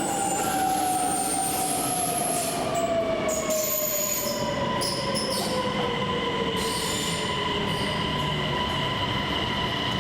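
Electric passenger train pulling into a station, its motor whine falling steadily in pitch as it slows, with steady high squealing tones from the wheels and brakes over the rumble of the running gear.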